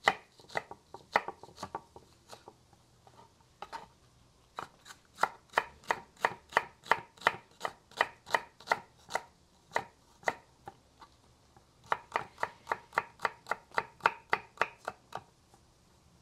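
Kitchen knife slicing an onion thin on a wooden cutting board: sharp knocks of the blade on the board, in runs of about three a second with short pauses in between, stopping shortly before the end.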